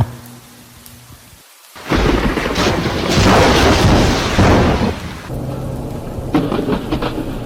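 Thunder crashing over heavy rain, coming in suddenly about two seconds in after a brief gap. It is loudest in the middle, then eases to a lower, steady rush of rain near the end.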